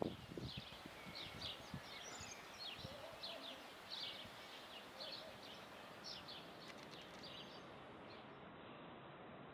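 Small birds chirping in short, high, repeated calls, about two a second, over a faint steady background noise. The chirps thin out near the end.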